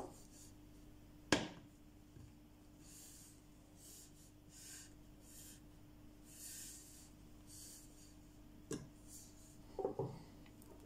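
Handling noises from a knife sharpener: a sharp click about a second and a half in as a knife blade is set down on the sharpener's plastic base, soft rubbing of hands on the parts, and a second, smaller click near the end.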